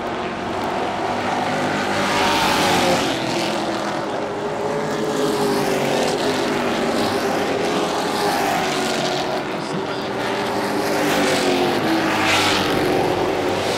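Pro Truck race trucks running at speed around an asphalt oval. The engine pitch rises and falls as the pack passes, with louder swells about two and a half seconds and twelve seconds in.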